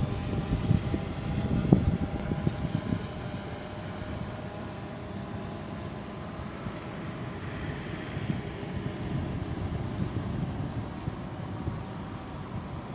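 Steady engine-like hum with a low rumble, a little louder in the first two seconds, with a thin high whine above it.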